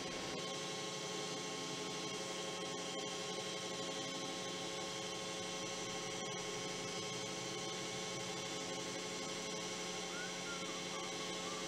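Steady electrical hum: several steady tones over a faint hiss.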